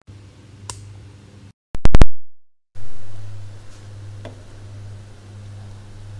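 Two or three very loud sharp clicks with a brief dropout, where the video cuts about two seconds in. Afterwards a ladle stirs a steel pot of simmering curry, with a faint clink against the pot, over a steady low hum.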